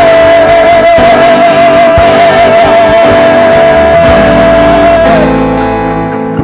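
Live gospel worship music with a full band and guitar. A single high note is held with a slight waver over the chords and cuts off about five seconds in, after which the band plays on more softly.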